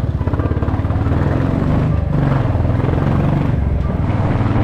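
Royal Enfield Classic 350's single-cylinder engine running under way, breathing through an aftermarket bass silencer that makes the bike noisy. The engine note rises a little around the middle, then settles.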